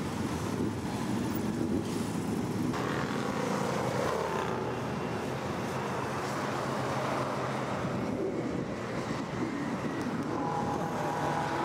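Engines of a large convoy of motorcycles riding past, a steady mixed drone. The sound changes about three seconds in, and a steady tone joins near the end.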